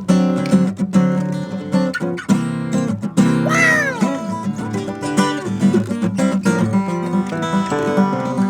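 Acoustic guitar played live, a run of picked notes and chords. Partway through comes a short high cry that swoops up, then falls.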